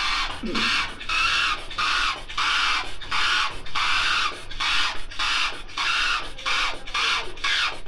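Double-edge safety razor scraping through lathered stubble in short, even strokes, about two a second.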